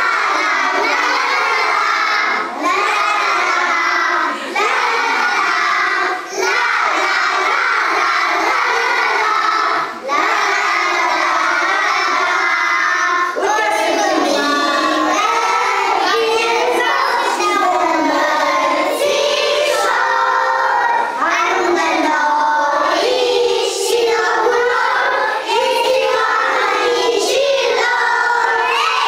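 A group of young kindergarten children singing a song together, loud and close to shouting, with short pauses between phrases in the first ten seconds.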